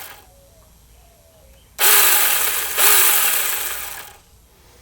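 Cordless mini handheld chainsaw run in a short burst of about two and a half seconds, starting a little under two seconds in, the motor and chain spinning up and then winding down, to spread freshly applied bar and chain oil along the chain.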